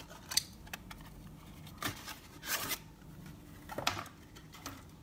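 Clear plastic blister pack of a toy car being pried and torn open by hand: scattered crackles and rustles of plastic and card, the loudest about two and a half seconds in.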